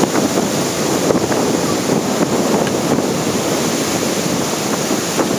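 Surf breaking and churning steadily, with wind buffeting the microphone.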